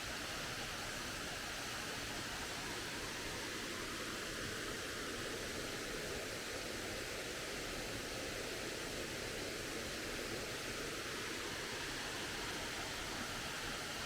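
Waterfall rushing: a steady, unbroken noise of falling water that does not change.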